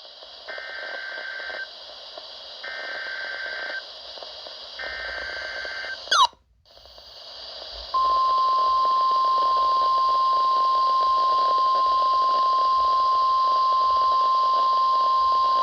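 NOAA Weather Radio alert played through a dying 12-993 weather radio receiver. Three one-second buzzing SAME header data bursts come first, then a sharp glitch and brief dropout about six seconds in. About eight seconds in, the steady 1050 Hz warning alarm tone begins and holds, over a constant hiss.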